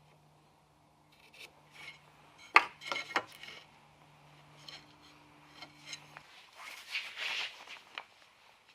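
Hand tools working a small piece of wood: a quick cluster of sharp wooden knocks about two and a half seconds in, scattered scraping, then a longer scraping pass near the end. A low steady hum underneath stops about six seconds in.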